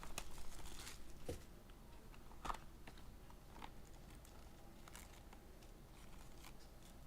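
Trading card packaging being handled: faint crinkling of wrapper, then scattered light clicks and taps.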